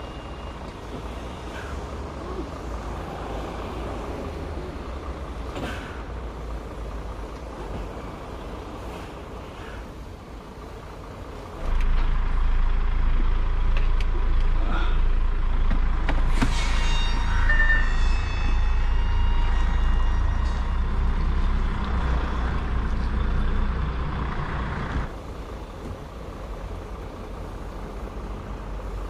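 Diesel semi-truck engine running at low speed while the rig manoeuvres. A little before halfway the engine becomes much louder and deeper, heard from inside the cab, then drops back a few seconds before the end. About two-thirds in there is a brief sharp sound with a short run of higher tones.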